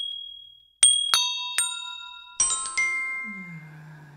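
Glockenspiel-like chime notes struck one by one, each ringing out and dying away, with a quick run of higher notes about two and a half seconds in. A short low tone falls in pitch near the end.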